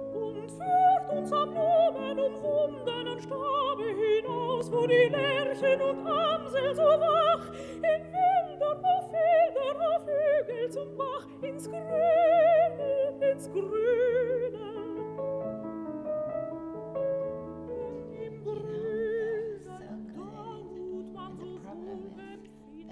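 Background music: a high operatic voice singing with wide vibrato over held instrumental chords. The singing is loud at first, grows softer after about fifteen seconds and tapers off near the end.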